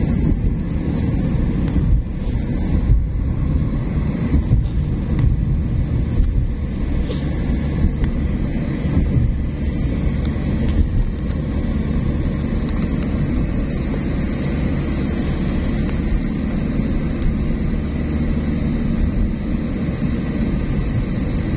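Car driving along: a steady, low road and engine rumble.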